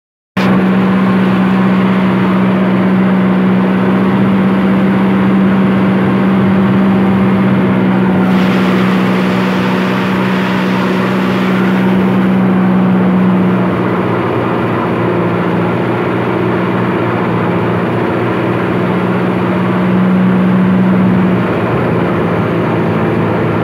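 Kubota tractor's diesel engine running steadily under load as the tractor drives through a wet, muddy field, a constant drone with small changes in pitch. A spell of added hiss comes about eight to twelve seconds in.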